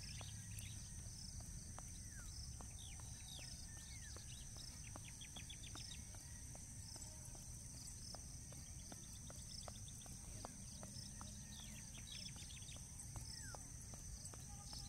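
Soft, faint footfalls of someone jogging in place on a concrete path, with birds chirping and trilling in short, quick calls. A steady high hiss and a low wind rumble sit underneath.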